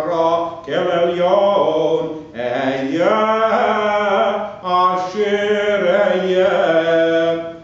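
Solo male cantor chanting Hebrew liturgy unaccompanied, in long held, ornamented phrases with three brief breaks between them.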